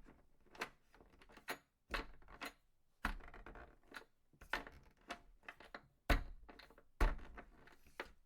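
A series of irregular knocks and clatters, about a dozen, the two loudest near the end.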